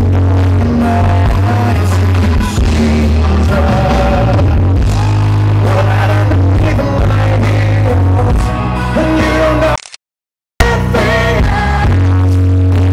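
Live rock band playing, recorded from the audience and heavily distorted. The sound cuts out completely for under a second near the end.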